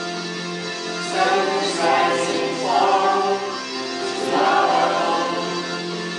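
Music with a choir singing over held chords; the voices swell three times.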